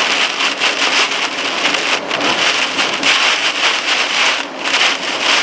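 Heavy rain pelting a vehicle during a severe thunderstorm, a steady hiss with brief dips about two seconds in and near the end.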